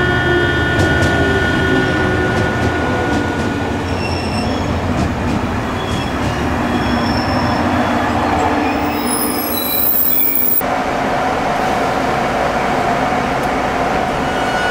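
Electric train running through the station, with a steady rail rumble and several high steady tones. A lower whine falls in pitch over the first few seconds, and the sound changes abruptly about ten and a half seconds in.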